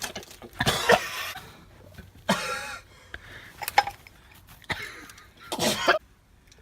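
A man coughing hard in about four rough bouts, the longest near the end.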